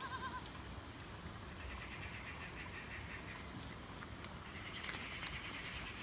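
Local goats bleating faintly: a short wavering call at the start, then two longer, quavering calls in the middle and near the end.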